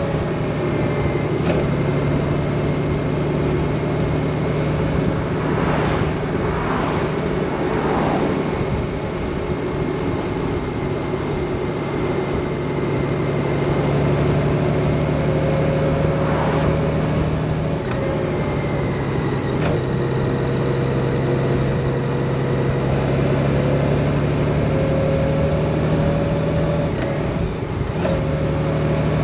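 Honda Gold Wing's flat-six engine running steadily at a moderate cruise, heard from the rider's seat as a constant drone mixed with wind and tyre noise. There are a few brief swells of noise, and the engine pitch shifts slightly now and then.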